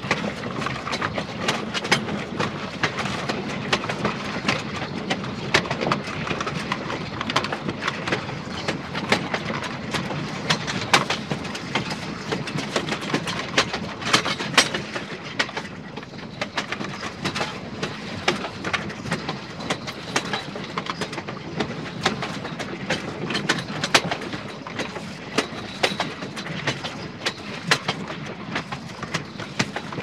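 Train cars rolling along the track: a steady rumble with frequent, irregular clicks and clanks from the wheels.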